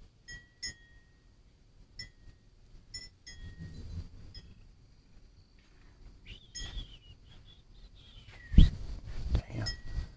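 Metal wind chimes ringing in scattered single strikes in gusty storm wind, with a bird call about six and a half seconds in. A sudden loud low thump about eight and a half seconds in, then wind rumbling on the microphone.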